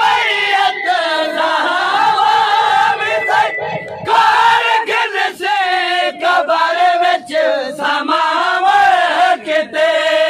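A crowd of men loudly chanting a Muharram noha (mourning lament) together in unison, their voices strained and shouting, with a brief break about four seconds in.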